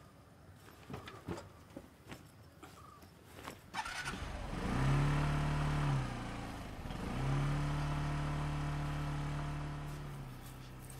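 Motorcycle engine starting after a few faint clicks, revving up twice and then running steadily, slowly growing quieter near the end as it pulls away.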